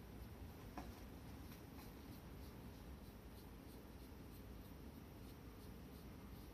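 Faint scratching and rubbing of fingers massaging a calico cat's fur, a quick irregular series of soft scratches.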